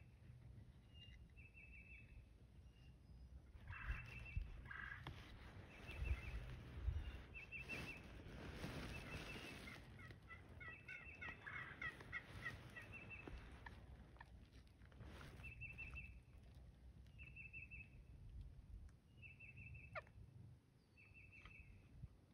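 Faint wild turkey calls, gobbling among them: short runs of quick notes repeat every second or two, with a busier stretch of calling around the middle.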